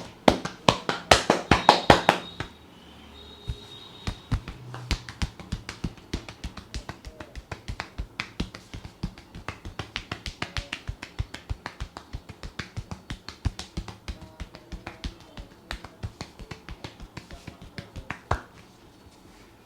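Hands tapping rhythmically on a person's head during an Indian barber's head massage: a short run of loud, fast slaps, then a long run of lighter, even taps that stops near the end.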